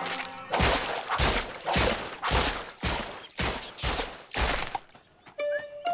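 Cartoon slapstick sound effects: a quick run of about seven heavy crashing thuds, with high warbling whistles near the end.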